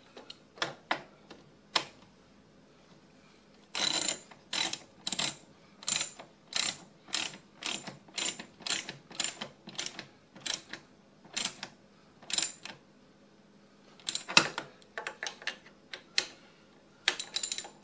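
Ratchet wrench with a 10 mm socket clicking as a nut is snugged down. A few scattered clicks come first, then a steady run of about two strokes a second, and after a pause a couple of shorter bursts near the end.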